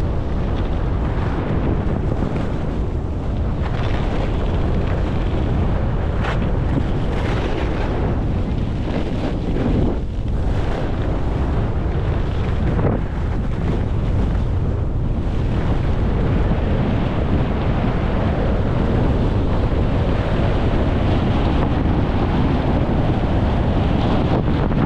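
Wind buffeting the action camera's microphone as the skier moves downhill, with skis hissing and scraping over packed, groomed snow through turns; the scraping swells come and go mostly in the first half.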